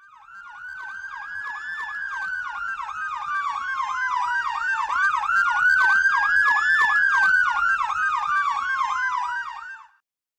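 Fire engine electronic sirens sounding, with a slow wail rising and falling about every five seconds layered over a rapid yelp. The sound grows steadily louder and cuts off abruptly near the end.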